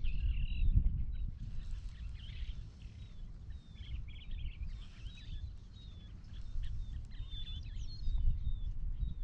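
Wild birds chirping and calling many times over, with wind rumbling on the microphone, strongest in gusts near the start and near the end.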